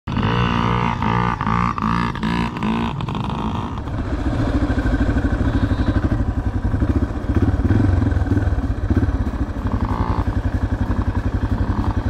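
Small two-stroke dirt bike engine revving up and down. From about four seconds in, a steady, rapid engine throb from the vehicle carrying the camera as it drives along.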